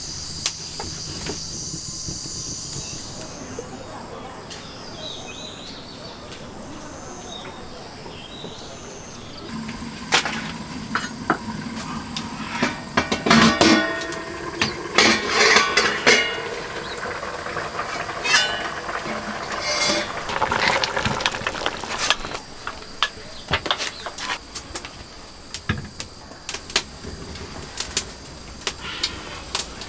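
A metal cooking pot and its lid being handled on a wood-fired clay stove, with irregular clanks, knocks and clatter starting about ten seconds in, some of them in quick clusters, over a low steady hiss.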